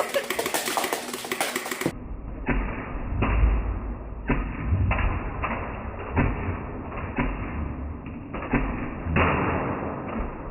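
For about two seconds, a rapid clatter of Nerf Rival foam balls striking and knocking over Magna-Tiles magnetic building tiles. Then the sound turns muffled and slowed, as in slow-motion playback: dull thuds about twice a second over a low rumble, with a louder crash near the end.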